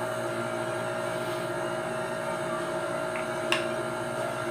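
Steady machine hum with several constant pitches, and a single short click about three and a half seconds in.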